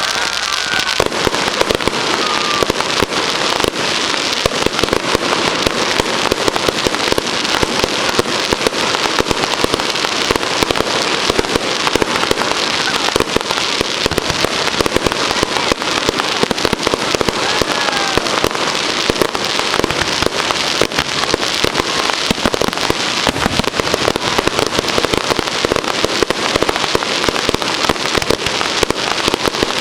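Fireworks display: a dense, continuous barrage of rapid cracks and bangs that keeps up at an even loudness throughout.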